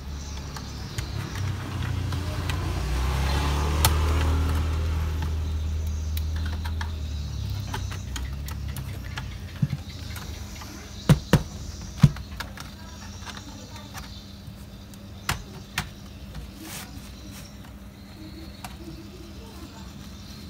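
Plastic laptop case being handled on a workbench: a scattering of sharp clicks and knocks, the loudest three close together past the middle and two more a few seconds later. Under them, a low rumble swells over the first few seconds and fades away.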